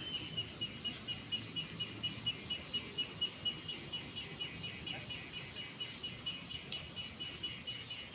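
A steady series of short, high chirps repeated evenly, a few each second, from a small animal, over faint outdoor background noise.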